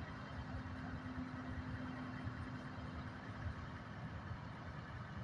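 A vehicle engine idling, a steady low rumble with a steady hum over it that drops out about four seconds in.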